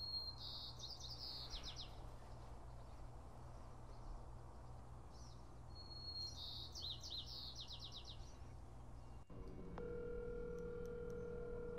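A songbird chirps twice, each time a short run of quick notes, over a faint steady hum. Near the end, a phone's steady ringback tone starts as an outgoing call rings unanswered.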